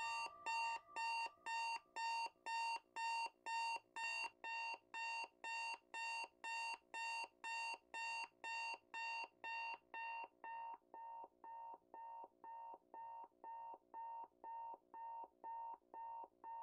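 Digital bedside alarm clock beeping, an even run of about two short electronic beeps a second. About ten seconds in, the beeps turn quieter and duller.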